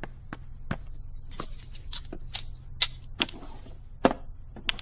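Irregular light clicks and taps, about two or three a second with a few sharper ones near the end, over a faint steady low hum.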